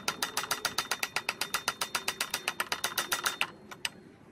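Rapid, evenly spaced sharp knocks, about ten a second, as a mallet taps the crankshaft end of a small four-stroke pump engine to knock its flywheel loose. The knocking stops about three and a half seconds in.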